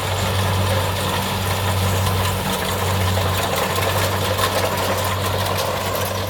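Kubota DC70 combine harvester's diesel engine running steadily, a constant low hum under an even mechanical noise.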